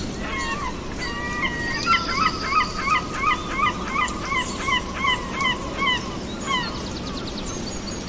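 Zebra barking call: a run of short, high-pitched yelping barks, about three a second. They begin soon after the start, come loudest and fastest through the middle, and stop a little before the end.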